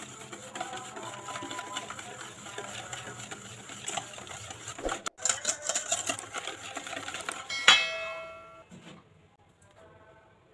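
Wire balloon whisk beating a thin batter in a stainless steel bowl: rapid, continuous clicking and scraping of the wires against the metal. About three quarters of the way through, the whisk strikes the bowl once and the bowl rings briefly.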